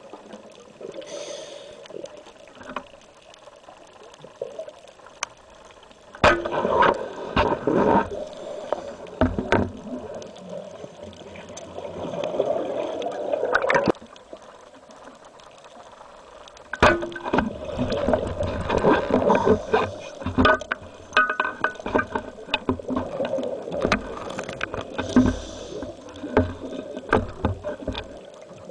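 A scuba diver's exhaled bubbles gurgling and crackling, recorded underwater. They come in two long stretches, starting about six seconds in and again about seventeen seconds in, with quieter water between.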